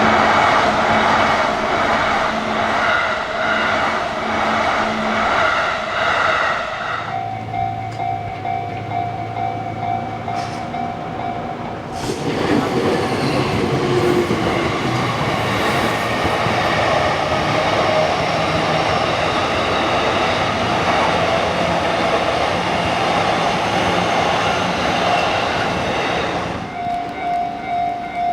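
Railroad crossing warning bell ringing in an even, repeating kan-kan rhythm. A train then passes with a loud, continuous rush of wheel and track noise for about fourteen seconds, after which the crossing bell is heard ringing again.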